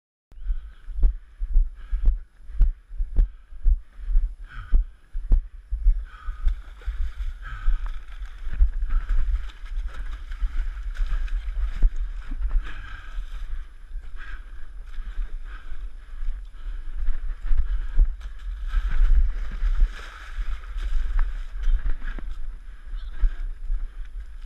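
Running footsteps jolting a body-mounted action camera, about two low thumps a second, giving way after a few seconds to a continuous low rumble of wind and handling noise with irregular knocks and scuffs as the runner scrambles over loose clay.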